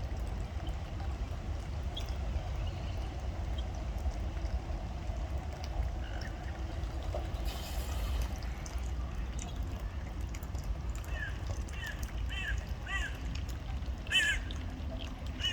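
Ducks quacking: a few faint calls, then a quick run of short, harsh quacks from about eleven seconds in, over a steady low background rumble.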